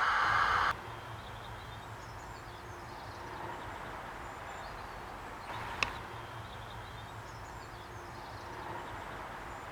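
A steady hiss of the steam sound card's safety-valve effect, played through the model locomotive's speaker, cuts off suddenly about a second in. Quiet outdoor ambience with faint birdsong and a low hum follows, with a single sharp click a little past halfway.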